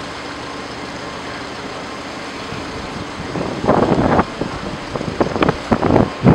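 Steady running of parked emergency vehicles' engines, a low even hum. From about three and a half seconds in, louder irregular bursts of sound come on top.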